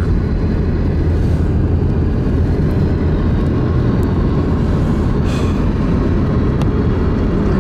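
Steady rumble of a vehicle driving along a road, tyre and engine noise with no changes in speed.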